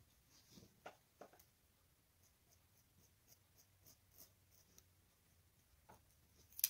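Faint scratching of a pen tracing around a template on black felt, in short soft strokes, with a small tick near the end.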